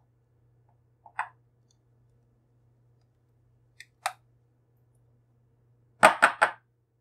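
Silicone spatula tapping against a glass mixing bowl while stirring a wet banana muffin batter: a single tap about a second in, another about four seconds in, then three quick taps, the loudest, near the end as the spatula is lifted out.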